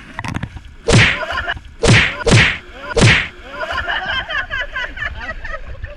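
Heavy splashes of people jumping into a river right beside a water-level camera, with water slapping over the microphone: four loud smacks in about two seconds. They are followed by choppy water and a jumble of high, wavering voice-like cries.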